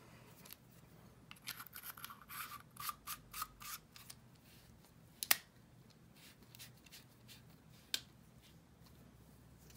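A quick run of short scratchy rubbing strokes as the threads of a paintball regulator are cleaned, followed by two sharp clicks, the first the loudest.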